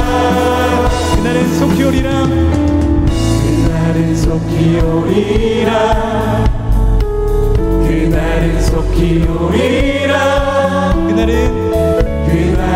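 Worship band and vocal team performing a Korean praise song: a lead singer and several backing vocalists singing together over acoustic guitar and band accompaniment.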